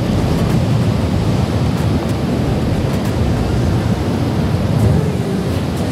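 Wind buffeting the microphone over the steady wash of sea surf on the rocks, a dense low rumble with no clear events.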